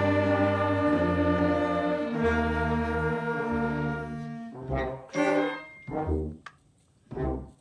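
School wind band of woodwinds and brass playing sustained chords over a low bass line, then a few short, separated chords in the second half.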